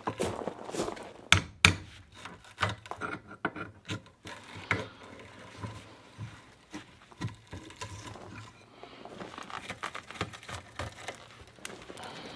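Irregular knocks, clicks and scraping as parts of a dehumidifier are handled and pulled apart by hand, with two sharp knocks close together about a second and a half in.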